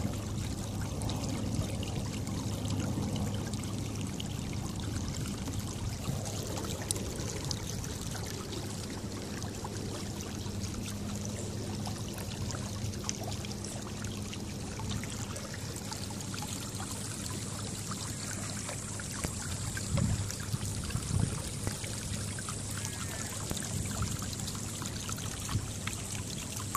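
Water rushing and trickling along the hull of a motorised kayak under way, over a steady low hum from its stern-mounted motor. A couple of louder bumps come about twenty seconds in.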